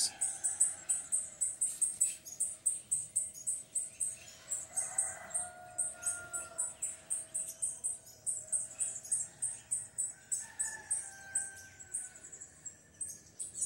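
Birds chirping outdoors in a rapid, high-pitched run of about four to five chirps a second, with two longer drawn-out calls, one about five seconds in and one about ten seconds in.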